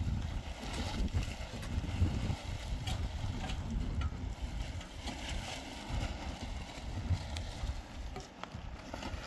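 Wind buffeting the microphone outdoors: an uneven low rumble that swells and drops, with scattered light taps and knocks over it.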